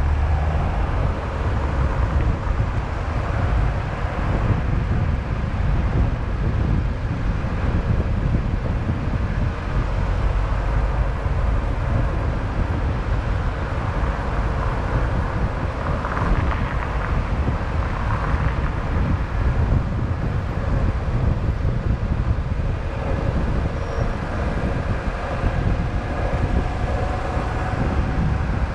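Steady road noise of a car driving through city traffic: a low rumble of tyres and engine with some wind noise.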